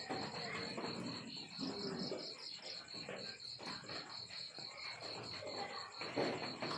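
A cricket chirping steadily in a fast, even pulse, over irregular lower sounds, with a louder muffled sound about six seconds in.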